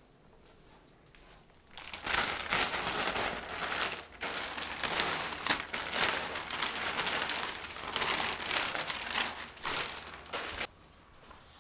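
Clear plastic wrapping crinkling as it is pulled off a rolled-up rug. It starts about two seconds in and stops suddenly near the end.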